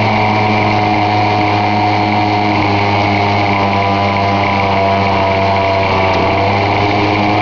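Motor-driven screw cone log splitter running steadily under load, its threaded steel cone boring into the base of an upright log and splitting it.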